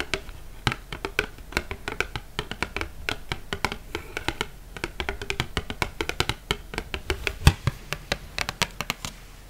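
Long fingernails tapping quickly on a printed cardstock recipe card, a fast, irregular patter of sharp clicks with one louder tap late on. The taps thin out near the end.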